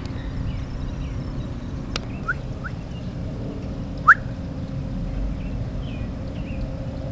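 Outdoor ambience: a steady low rumble with short rising bird chirps, the loudest a sharp chirp about four seconds in, and fainter high chirps after it.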